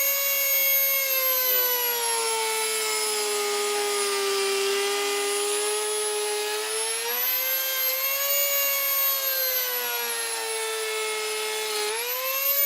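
Dremel rotary tool with the PL400 planer attachment running at high speed, planing a wood edge. Its high motor whine sags in pitch while the cutter is loaded in the wood, picks up again around the middle, then sags once more on a second stretch of cutting.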